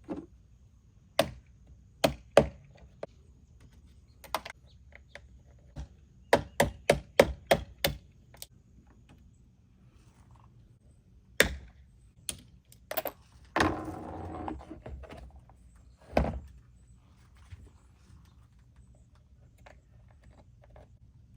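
Sharp plastic clicks and snaps as white plastic trim clips are pried out with a panel removal tool and pushed back into their slots, including a quick run of about six clicks a third of the way in and a short scraping rustle just past the middle.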